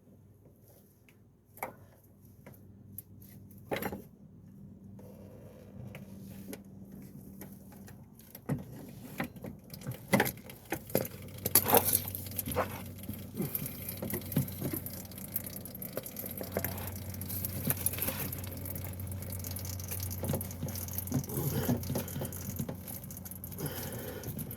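Motor oil pouring and dripping into a drain container from under the engine's oil filter, with scattered metallic clinks of the filter wrench and tools. A few sharp clicks near the start, then the pouring grows steadier and louder from about five seconds in.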